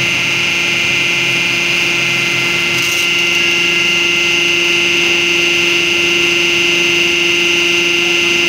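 Hydraulic test bench's power unit running, an electric motor and pump giving a steady hum with a high-pitched whine, driving a telescopic hydraulic cylinder on test.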